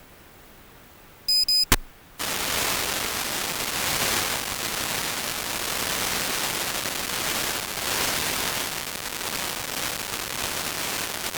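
Two short, high electronic beeps and a sharp click, then a sudden steady hiss of static that carries on.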